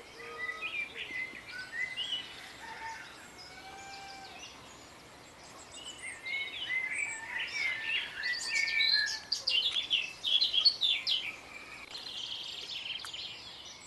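Small birds singing, many short chirps and whistles: sparse with a few slow slurred whistles at first, becoming a dense chorus from about six seconds in.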